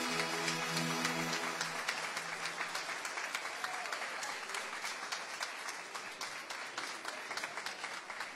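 Small audience applauding, the clapping slowly thinning and growing quieter. A held musical chord dies away in the first second or two.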